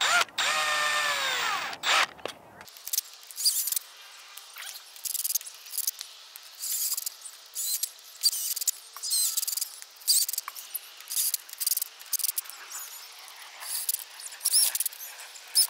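Cordless drill driving machine screws through a steel frame: one long run in the first second and a half, its pitch falling as the screw draws tight, then many short trigger bursts with high squeaking as further screws are run down against their nuts.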